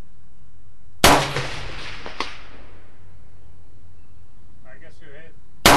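Two single shots from an AK-47 rifle in 7.62x39, one about a second in and the other at the very end, each a sharp crack with a long echoing tail off the range. A faint sharp tick follows about a second after the first shot.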